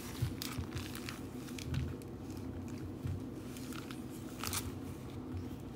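Apples being set down one by one on a granite countertop: a few soft, dull thumps and light knocks, over a steady low hum.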